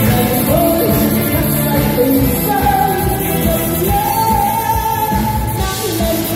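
A woman singing a pop song into a microphone over a live band of electric guitar, drum kit and keyboards, amplified through PA speakers. She holds long notes through the middle.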